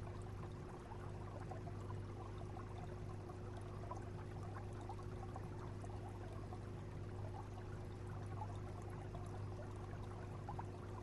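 Aquarium water circulation: water trickling and bubbling steadily over a constant low hum from the tank's pumps and filtration.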